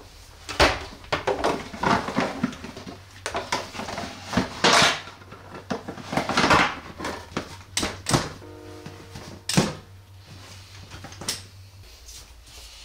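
Handling noise from packing empty plastic water bottles into a leather backpack: rustling, plastic crinkling and knocks, with a brief squeak about eight seconds in. A faint low hum underneath stops near the end.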